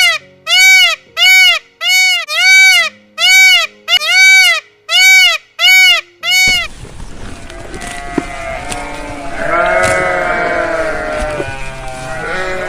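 A run of identical short arching pitched notes, about two a second, lasting some six seconds; then, after a sudden change in the background, bleating livestock with one long bleat a little past the middle and another near the end.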